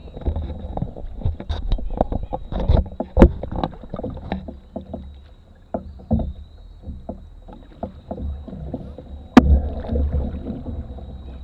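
Canoe being paddled: irregular knocks and clunks of paddles and gear against the hull, densest in the first few seconds with one sharp knock near the end, over a low wind rumble on the bow-mounted microphone.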